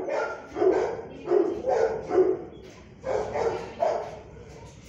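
A dog barking, about six barks: four in quick succession, then a short pause and two more.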